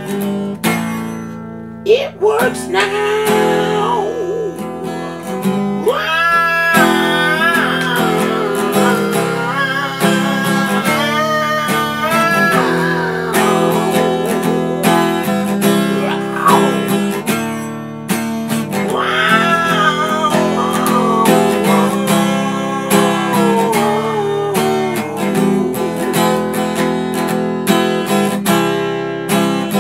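Acoustic guitar strummed and picked, with a man singing over it.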